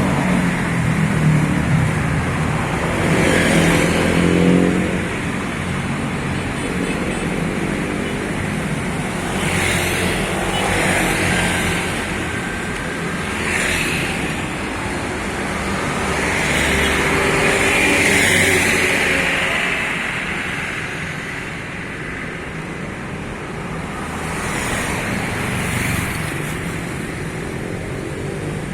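Road traffic passing close by on a main road: a steady run of engine and tyre noise, with a vehicle swelling louder every few seconds as it goes past.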